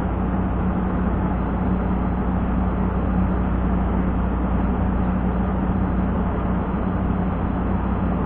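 Wind buffeting an action camera's microphone: a steady rumbling noise with a constant low hum underneath.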